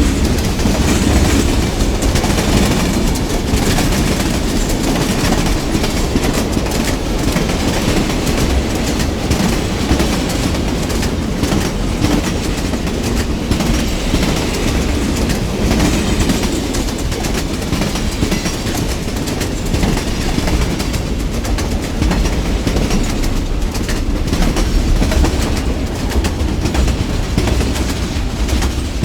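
A train passing, its cars rolling by in a steady rumble of wheels on the rails, with many quick clicks from the wheels running over the track.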